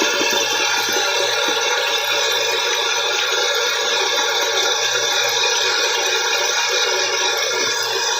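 Wet shaving brush swirling through thick shaving-soap lather, a steady wet squishing and swishing.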